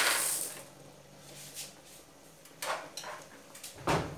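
Cooked macaroni poured from a plastic bowl into a frying pan, sliding in with a noisy rush that dies away about half a second in. Then a few short clatters of kitchenware, the loudest a deeper knock near the end.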